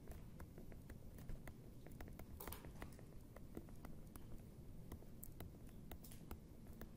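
Faint irregular clicks and taps of a stylus writing on a tablet screen, over a low room hum.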